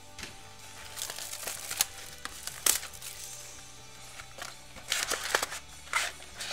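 Hands tearing open a sealed Panini Select trading-card hobby box and handling its wrapper and cardboard: a series of short crinkling, tearing and scraping noises, the sharpest a little under three seconds in and near the end.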